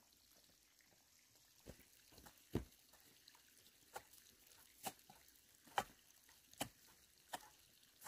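Faint sharp taps, about seven of them roughly a second apart, starting near two seconds in, over an otherwise quiet background.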